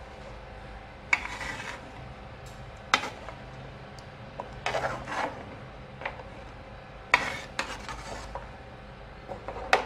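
Metal spoon stirring a soupy beef paya gravy in a large metal cooking pot, scraping and knocking against the pot several times at uneven intervals.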